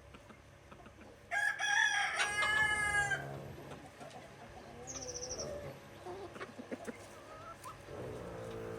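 A rooster crows once, loudly, for about two seconds starting a little over a second in. Softer chicken clucking follows, with a brief high chirp near the middle and another low call near the end.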